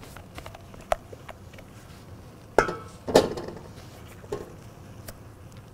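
A spatula scraping and knocking against a glass mixing bowl as dressing is emptied out of it. There are two louder clinks close together a little past the middle and a few lighter taps.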